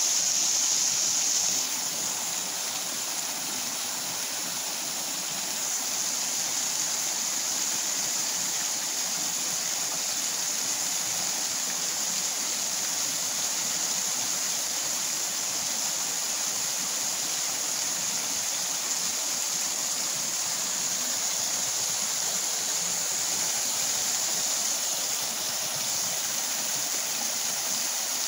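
A partly frozen waterfall flowing heavily: a steady rush of falling water.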